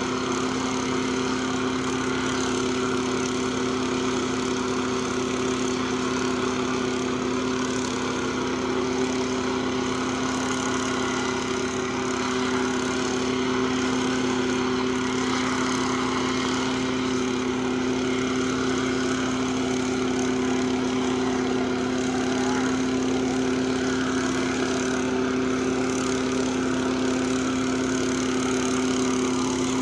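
Small portable engine-driven machine running at a constant speed, a steady drone that holds one pitch throughout.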